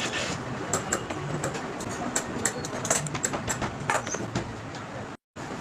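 Workshop machine noise: a steady mechanical hum with irregular clicks and knocks. It cuts off abruptly for a moment near the end.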